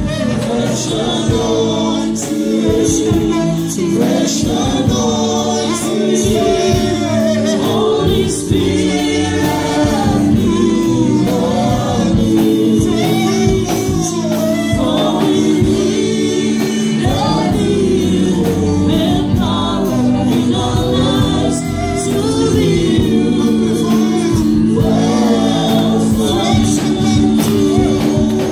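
Live gospel worship song: several women and men singing together into microphones over a band, with held keyboard or bass notes and cymbal strokes.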